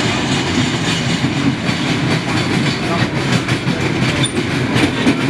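Small dragon-fronted kiddie roller coaster train running along its steel track close by, its wheels clattering on the rails.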